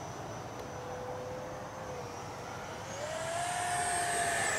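Electric ducted fan of an FMS Futura V2 80mm EDF jet model whining in flight. About three seconds in, the whine rises in pitch and gets louder.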